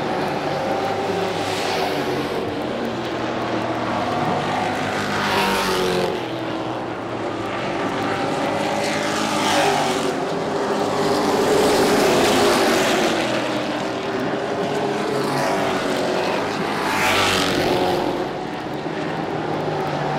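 Pro truck race engines running hard around the oval, several at once, their pitch rising and falling as trucks pass. The sound swells several times as trucks come by.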